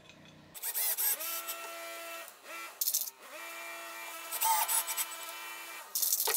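Cordless drill/driver driving wood screws through washers into plywood, played back four times fast so the motor's whine is raised in pitch. The motor spins up and stops about four times, with short rattling bursts between runs.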